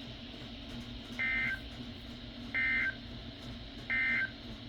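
Three short bursts of two-tone digital data signal, evenly spaced about a second and a third apart. They are the EAS/SAME end-of-message code that closes a weather-radio severe thunderstorm warning.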